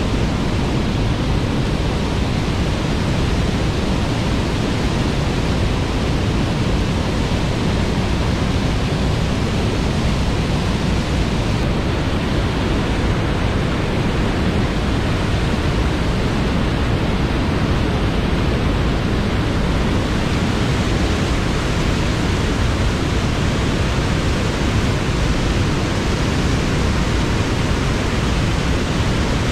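Waterfall rushing: a loud, steady roar of falling water that does not change.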